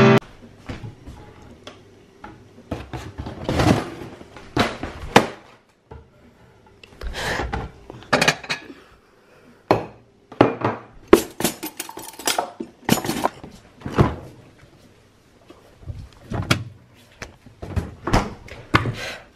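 Irregular knocks, clunks and thuds of household items being handled and set down in a kitchen, with a few louder bangs among quieter handling noise.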